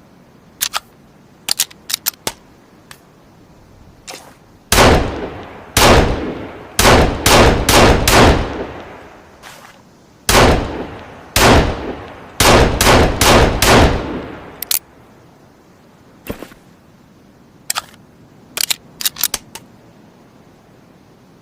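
Heckler & Koch USP Compact pistol firing two strings of shots, each shot trailing off in an echo; each string begins with single shots and ends in a quick run. Short, sharp clicks come before and after the shooting.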